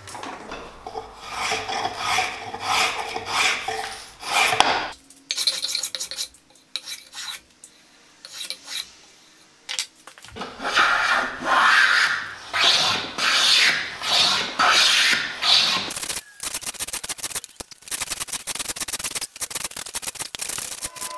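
Hand plane shaving a walnut board in repeated rasping strokes, with a quieter pause in the middle and quick, dense scraping ticks near the end.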